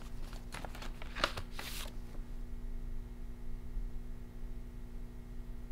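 Paper rustling and crackling as an envelope is opened and a letter taken out, for about the first two seconds, then only a steady low hum.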